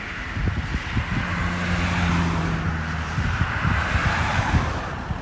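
A vehicle going by: a low engine hum and a swell of tyre noise that builds and then fades near the end, with wind buffeting the microphone.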